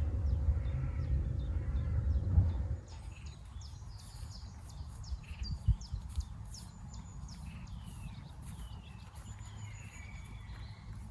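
A low rumble for the first few seconds that cuts off abruptly, then garden birds chirping and singing in many short, quick calls, with a single knock about six seconds in.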